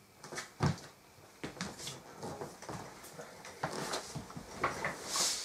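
Scattered knocks, clicks and rustling of a person moving about a small room and handling things, with a louder rustle of clothing near the end.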